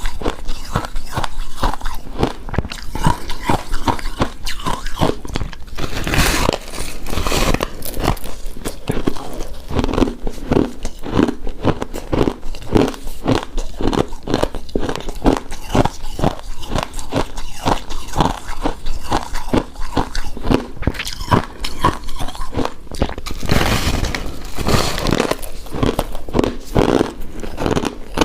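Close-miked biting and chewing of a chewy pink rice cake coated in shredded coconut: a steady run of many small mouth clicks, with two louder, noisier stretches about six seconds in and near the end.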